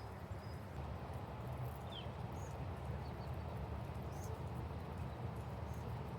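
Steady outdoor rain mixed with fast-running river water, an even rushing haze, with a few faint high chirps over it.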